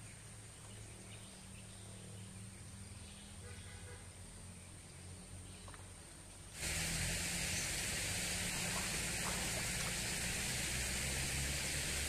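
Faint outdoor ambience with a steady high-pitched whine for the first six seconds or so. Then, suddenly, a steady rush of water flowing in a shallow concrete irrigation channel, swirling around a person's bare feet.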